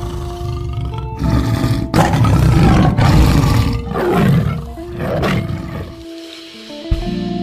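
Several loud animal roars in a row over background music, the loudest about two to three seconds in and the last two falling away in pitch; the music briefly drops out near the end.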